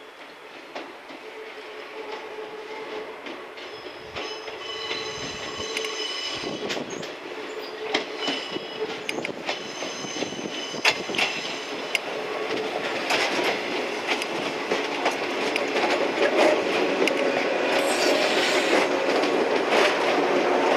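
An electric multiple-unit train approaching and growing steadily louder, its wheels squealing in high thin tones, with sharp clicks from the rails.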